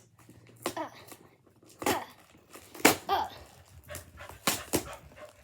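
Packing tape being torn off a cardboard box in about five short, sharp rips, with a couple of brief voice sounds in between.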